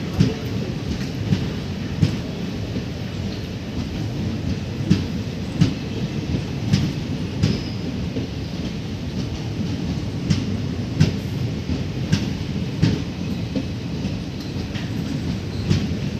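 Sleeper coaches of the Chennai Egmore–Kollam Mail rolling slowly along the platform: a steady low rumble with sharp clacks of the wheels over rail joints every half second to a second.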